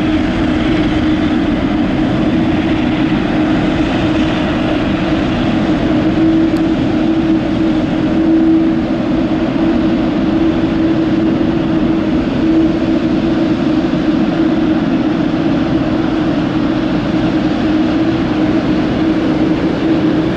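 Jet engine noise from a twin-engine regional jet at takeoff thrust as it rolls, lifts off and climbs away. A steady tone holds throughout, and the level stays even.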